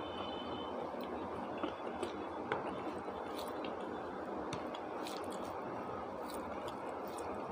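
Wet squishing and chewing sounds of someone eating khichuri and chicken curry, with scattered small clicks, over a steady background rumble.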